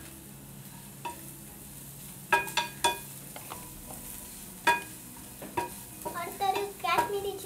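A metal spoon stirring fried potatoes in a kadai of hot oil: sharp ringing clanks against the pan over a faint sizzle, loudest about two and a half and four and a half seconds in. A quicker run of clinks and scrapes comes near the end.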